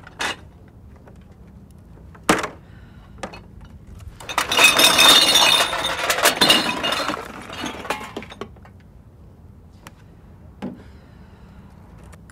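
Glass bottles and metal cans clattering and clinking as a blue recycling box is tipped out into a recycling cart, loudest for about four seconds in the middle. A few sharp knocks come before it, and a single clink follows near the end.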